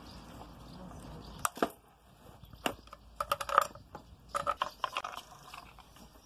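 Scattered metallic clicks, clinks and knocks of hand tools and loose parts on the clutch side of a Stihl MS 500i chainsaw while the rim sprocket is being taken off, some with a brief ring.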